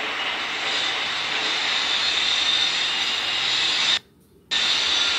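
Steady, fairly loud hiss-like background noise with no speech, dropping out abruptly for about half a second near the end before resuming.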